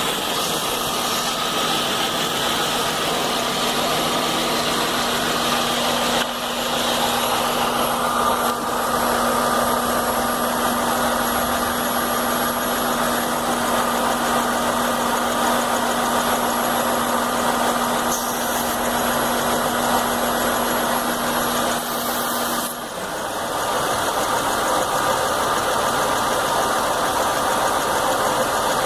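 Chevy Venture's 3.4-litre V6 idling with the rough idle its owner is chasing, tested at the fuel pressure regulator. A steady low hum runs under it and stops suddenly about three-quarters of the way through.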